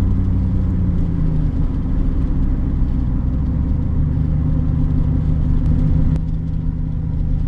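GMC Sierra pickup cruising on the highway, heard from the cab: a steady low drone of engine and road noise. The engine hum shifts about a second and a half in and settles back about four seconds in.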